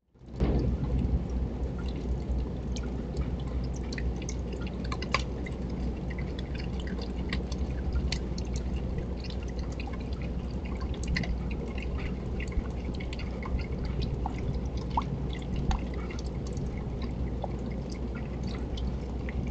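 Rain falling: a steady rushing noise with many scattered drips ticking close by.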